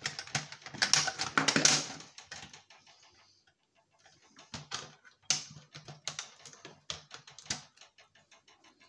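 Rapid clicks and rattles of plastic and metal parts being handled and worked apart while an electronic device is dismantled, dense at first, then scattered clicks with a quick ticking run near the end.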